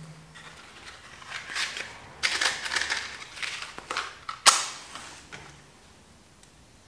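A wooden match scraped along the side of a matchbox in several rasping strokes. About four and a half seconds in it catches with a sharp crack and a short fizz as it flares.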